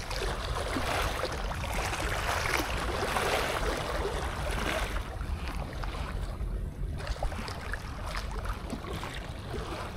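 Wind buffeting the microphone over small sea waves washing against shoreline rocks; the washing eases for a couple of seconds past the middle, then picks up again.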